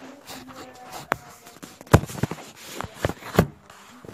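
Irregular knocks and clicks, the loudest about two seconds in and again near three and a half seconds in.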